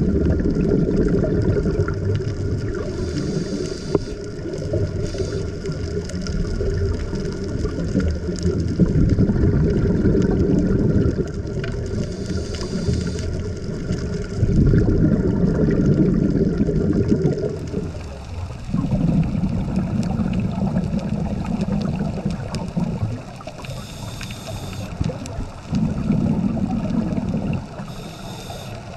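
Underwater sound of a scuba diver breathing through a regulator: short hisses of inhalation and long rumbling streams of exhaled bubbles, in slow cycles. A faint steady hum underneath stops about two-thirds of the way through.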